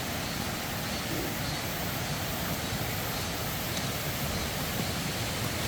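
Steady rushing of a mountain stream, an even hiss of running water with no breaks.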